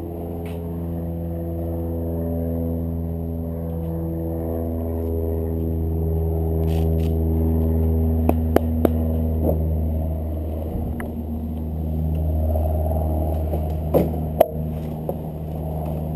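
Two-stroke kart engine idling steadily, its pitch wavering a little. A few sharp clicks and knocks come about halfway through and again near the end.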